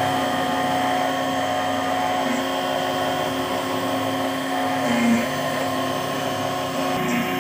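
Goso 339C manual key cutting machine running, its motor and rotary cutter humming steadily as it mills a duplicate key. The sound gets briefly louder about five seconds in.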